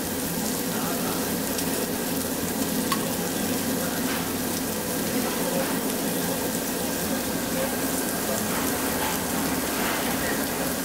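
Pork belly sizzling steadily on a tabletop barbecue grill, a dense hiss with faint crackles and pops now and then.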